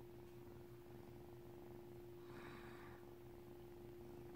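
Grey kitten purring faintly and steadily, over a steady low hum. A brief soft rustle comes about halfway through.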